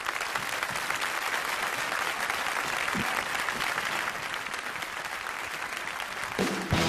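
Audience applauding in a large hall, a steady dense clapping. Near the end the band strikes up the next song.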